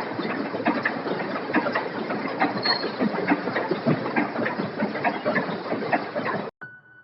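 Busy factory floor: machinery running with dense, irregular clicks and clacks, cutting off abruptly about six and a half seconds in.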